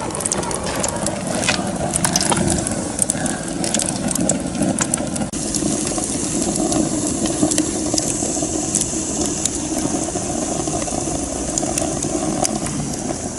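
Wood fire burning in a homemade mini rocket stove with a steady rushing draft, crackling and popping. The pops come thick in the first five seconds, then thin out into a steadier hiss.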